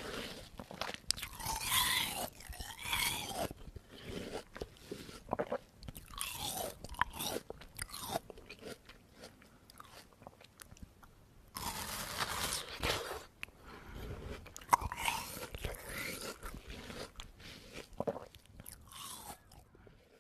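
Zombie sound effect made by crunching, biting and chewing, in irregular bursts with a quiet gap near the middle, mixed with short wavering pitched sounds.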